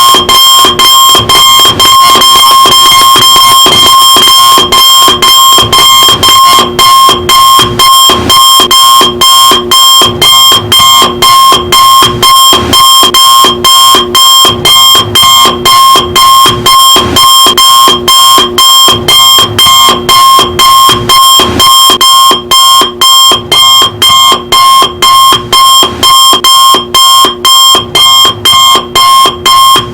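Electronic alarm clock beeping loudly and without let-up: a harsh, high buzzing tone pulsed about twice a second. The beeps run almost together at first and separate more clearly later on.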